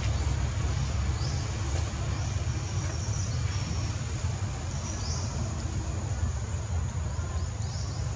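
Outdoor background: a steady low rumble with a few faint high chirping sweeps above it.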